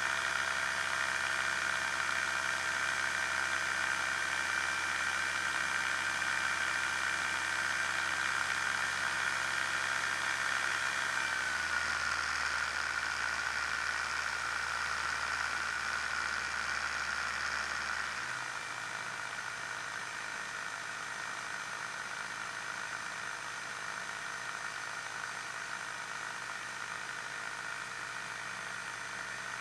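Challenger II ultralight's engine running steadily in flight with wind noise over it. About 11 to 12 seconds in, its pitch drops as the throttle comes back for the descent toward the snow, and a little past halfway it gets quieter again and stays at the lower setting.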